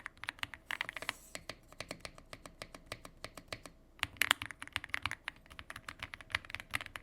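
Aula F75 75% mechanical keyboard being typed on: a rapid, irregular run of thocky keystrokes, heavier flurries coming about half a second in and again around four seconds in.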